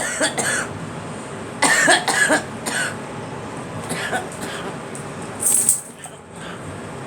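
A girl coughing in short, harsh bursts: one cough right at the start and a quick cluster of coughs about two seconds in. A brief hiss follows a few seconds later.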